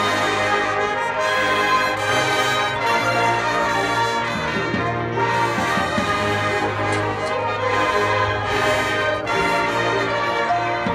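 A high school marching band playing, led by its brass section holding full, sustained chords, with a few short percussion strokes in the middle and near the end.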